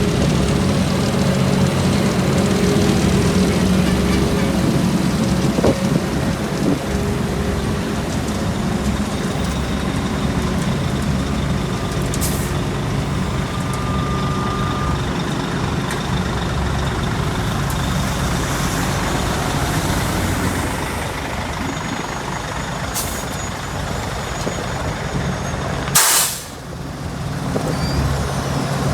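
Heavy diesel road-paving machinery running steadily. Near the end there is a short, loud hiss of air typical of a truck's air brakes, with a couple of fainter hisses earlier.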